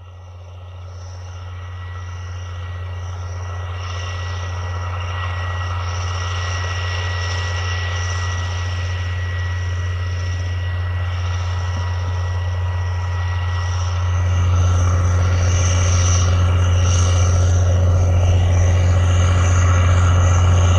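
Challenger MT865C tracked tractor's Caterpillar C18 diesel engine droning steadily under load as it pulls a Kinze 3600 corn planter, with a thin steady whine above it. The drone grows steadily louder as the tractor approaches, with a step up about two-thirds of the way through.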